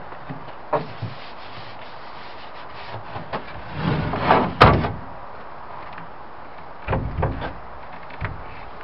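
Wooden panels of a pine TV cabinet knocking and scraping as its top hutch section is lifted off the base, with one loud wooden bang about four and a half seconds in. A few dull thuds follow near the end as the section is set down.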